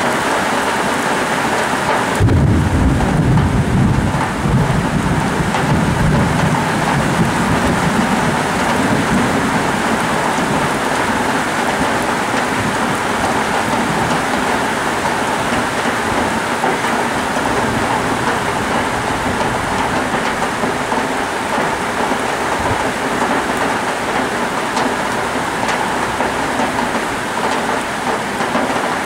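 Heavy tropical rain falling steadily in a thunderstorm. About two seconds in, a deep rumble of thunder breaks in and rolls on for several seconds before fading back under the rain.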